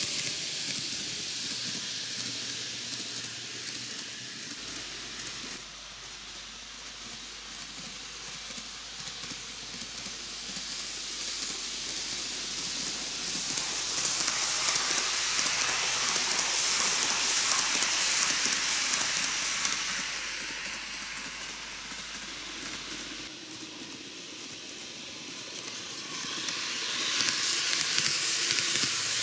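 TOMIX N-gauge Kintetsu 80000 series 'Hinotori' model train running on its track: a steady rushing clatter of wheels on rails and the small motor. It swells twice as the train passes close, once around the middle and again near the end, and fades in between as it runs round the far side of the loop.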